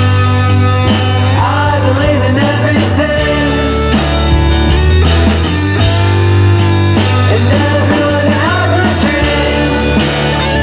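Rock music: guitars over bass and drums, with a lead line that bends up in pitch twice.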